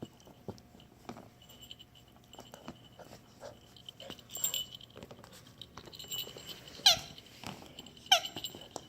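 Dog's rubber squeaky toy being chewed: small scattered clicks, then two loud, short squeaks about a second apart near the end.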